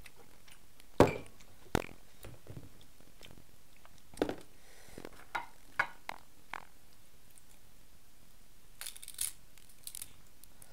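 Cooked king crab body shell being cracked and picked apart by hand: a string of sharp cracks and clicks, the loudest about a second in, and a brief rustling tear of shell and meat near the end.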